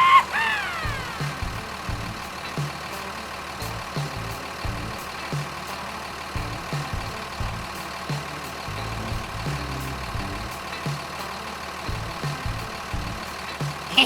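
A short falling whistle-like glide at the very start, then a steady low engine sound with an uneven throb, like a truck idling.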